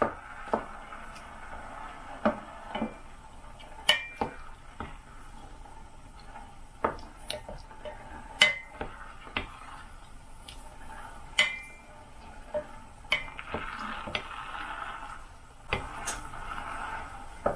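Wooden spatula stirring whole cranberries in a stainless steel saucepan, knocking irregularly against the side of the pan, some knocks ringing briefly off the metal. A faint steady hiss sits underneath as the berries heat.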